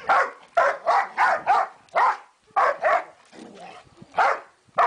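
Dog barking repeatedly in short, quick barks, about ten in all, with a pause of about a second before the last two.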